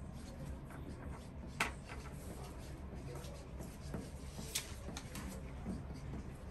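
Marker pen being drawn over a paper poster in short scratchy strokes, over a low room hum, with two sharper ticks, one about a second and a half in and one near the middle.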